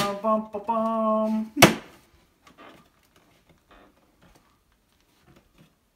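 Background music with a singing voice that ends about a second and a half in on one sharp knock. After it only a few faint light knocks, as a wooden knife strip is pressed and positioned against a wall.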